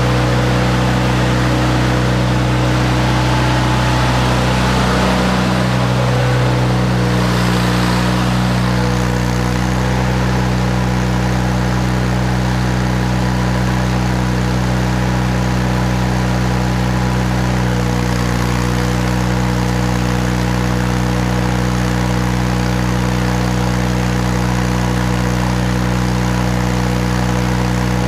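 Miller Bobcat 250 engine-driven welder's engine running steadily, with a hiss over it for the first eight seconds or so.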